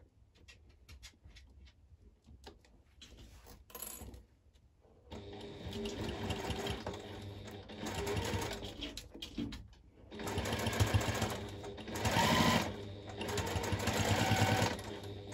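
Electric sewing machine top-stitching binding onto clear vinyl. A few light clicks at first, then about five seconds in the machine starts stitching and runs in stretches with brief pauses.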